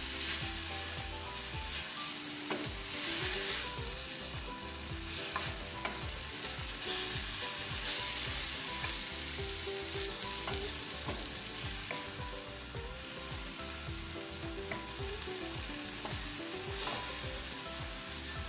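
Kale and sliced bell peppers sizzling in oil in a wok, stirred and turned with a wooden spatula. The sizzle swells and eases in waves, with scattered light knocks of the spatula against the pan.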